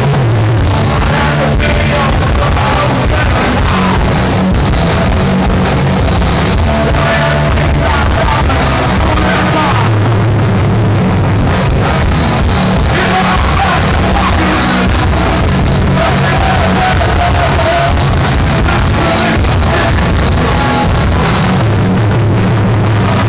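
Hardcore punk band playing live and loud: electric guitar, bass and drums.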